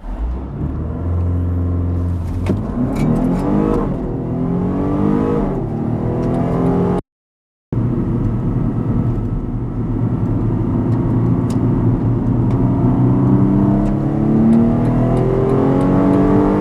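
BMW M135i xDrive engine revving, its pitch sweeping up and down with a few sharp cracks, then, after a brief cut to silence about seven seconds in, pulling hard with the engine note climbing steadily as the car accelerates.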